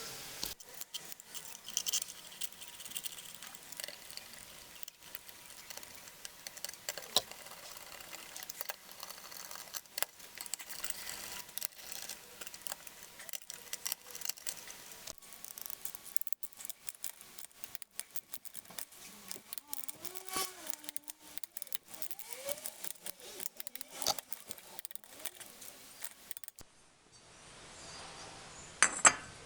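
Dense, irregular clinks and clicks of metal hand tools and engine parts being handled on a workbench, in quick succession.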